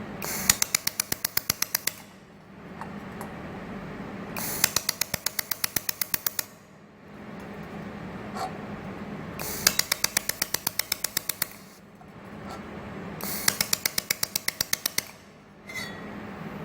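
Handheld xenon-lamp pulsed laser welder firing on stainless steel: four runs of rapid, evenly spaced sharp snaps, about ten a second, each run lasting about a second and a half, over a steady machine hum.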